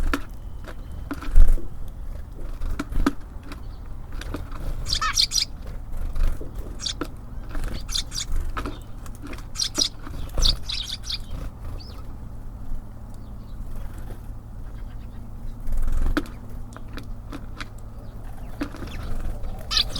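Small songbirds at a bird feeder: short bursts of high chirps now and then, among sharp taps and knocks of birds landing and pecking at the feeder, the loudest knock about a second and a half in. A steady low hum lies underneath.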